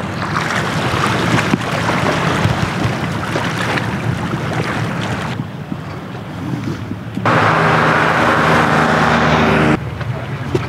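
Wind noise on the microphone over outdoor ambience, changing abruptly several times. From about seven seconds in, a louder steady motor hum runs for about two and a half seconds, then cuts off.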